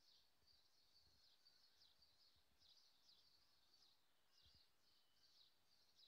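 Dawn chorus: songbirds singing faintly, a steady stream of quick high chirping notes repeated with hardly a break.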